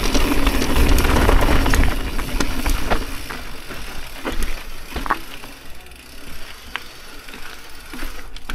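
Mountain bike riding down a rough singletrack: tyres rumbling over the dirt and the bike rattling, with many sharp knocks as it hits bumps. The rumble is heaviest in the first two seconds, then lighter.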